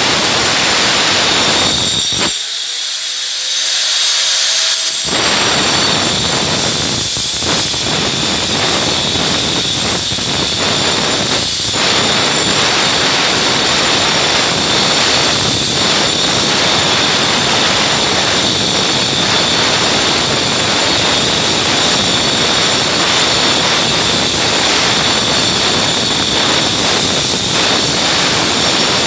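Handheld electric disc cutter cutting into a masonry wall: a loud, steady, high motor whine over harsh grinding. About two seconds in, the disc briefly spins free and the grinding drops away, then it bites into the wall again about five seconds in.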